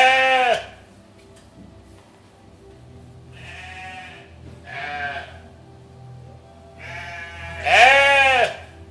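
Goats bleating: about five separate bleats, each under a second, with the pitch arching up and down. The loudest bleats come at the very start and near the end, with fainter ones in between.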